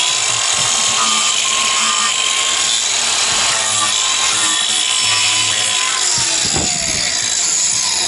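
Corded DeWalt angle grinder fitted with a dish-shaped wood-carving disc, running at speed and cutting into the side of a wooden box: a steady motor whine over the rough noise of the disc tearing wood. Its pitch dips briefly under load about six and a half seconds in, then recovers.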